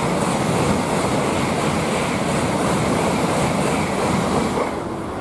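A train passing at speed close by: a loud, steady rushing roar with a faint regular beat from the wheels, which drops away sharply near the end as the train clears.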